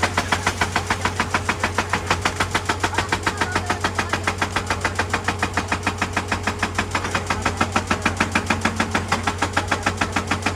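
Excavator-mounted hydraulic rock breaker hammering on rock in a fast, even rhythm of about seven or eight blows a second, with the excavator's diesel engine running underneath as a steady low drone.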